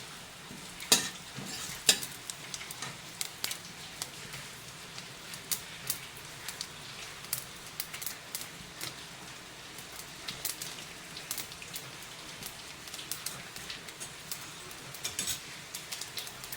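Hot oil sizzling in a cooking pan, with frequent sharp crackles and pops.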